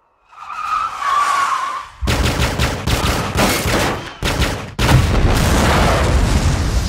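Action-film sound mix: a rising rush of sound, then rapid handgun gunfire from about two seconds in. A little before the end comes a sudden heavy blast of a car exploding and flipping, which stays loud.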